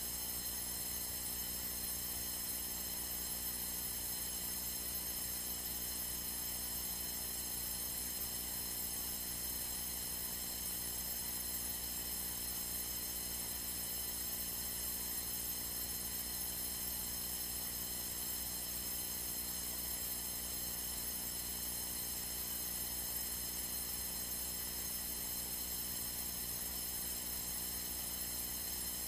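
Steady electrical hum with a faint hiss on the aircraft's radio and intercom audio feed between transmissions, even in level throughout.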